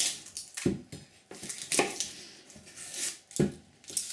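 Onion being cut with a kitchen knife on a chopping board: a few separate knife strokes roughly a second apart.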